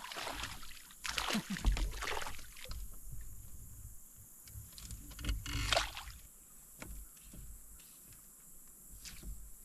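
Kayak being paddled: water splashing off the paddle in a few uneven strokes, loudest about a second and a half in and again near the six-second mark.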